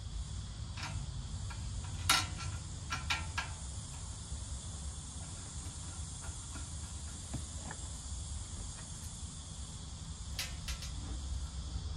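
Clicks and knocks of metal as an air conditioner's blower fan motor and its sheet-metal housing are handled. The loudest knock comes about two seconds in, with a quick cluster just after and a couple more near the end, over a steady high hiss and a low rumble.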